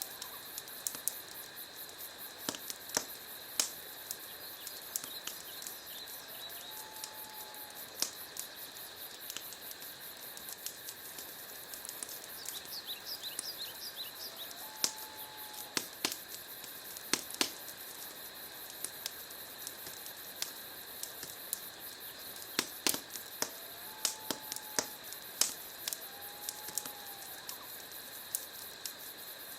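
Wood fire crackling in a fireplace: a steady hiss with frequent irregular sharp pops and snaps. A faint, short whistle-like tone recurs about five times.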